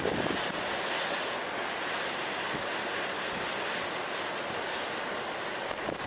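Rough, stormy sea: waves breaking and surf rushing steadily, with wind.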